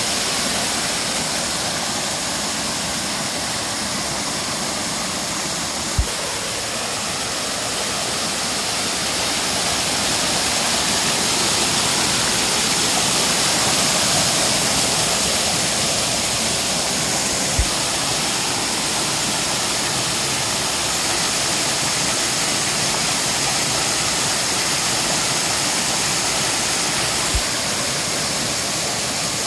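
Small waterfall heard close up: water pouring steadily over a rock ledge and crashing into the churning pool below, a dense, bright, hissing rush that swells slightly in the middle. Three brief low thumps are heard along the way.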